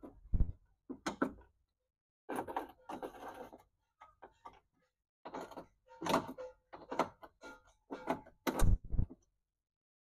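Irregular clanks, knocks and rattles from hands working on the power window regulator inside a bare sheet-metal car door, in short bursts with pauses between them. The loudest knocks come near the end.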